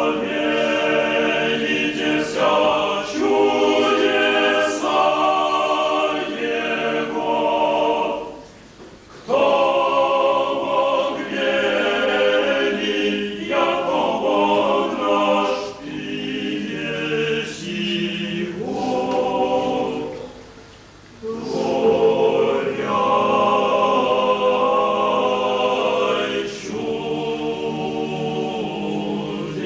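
Orthodox liturgical choir singing a cappella, in three sustained phrases with two short pauses, about a third and two-thirds of the way through.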